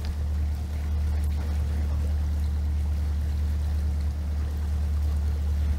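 Inboard engine of a Kent 28 Launch motorboat running steadily under way, a constant low drone heard from on board.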